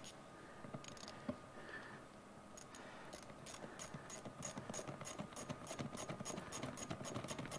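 Small socket ratchet clicking in a steady run of quick metallic ticks, about four to five a second, starting a couple of seconds in after a few scattered taps. It is working on a small nut on the threaded post of a motorcycle seat's chrome trim strip, a nut that just spins on its post.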